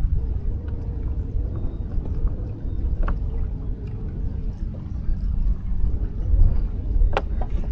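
Wind buffeting the microphone, a loud, uneven low rumble, with a few sharp knocks about three seconds in and twice near the end.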